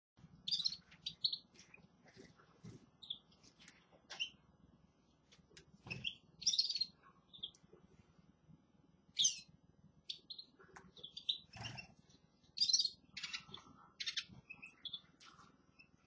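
Several caged finches chirping and calling in short, irregular notes, some sliding down in pitch, with a couple of soft thumps among them.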